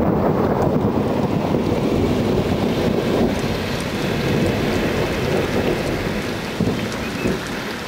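Rolling thunder, a deep continuous rumble that slowly fades away.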